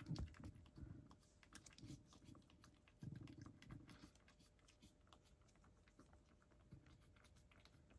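A cat eating from a wooden dish: faint, quick crunching and clicking of chewing, with dull low bumps near the start and again about three seconds in.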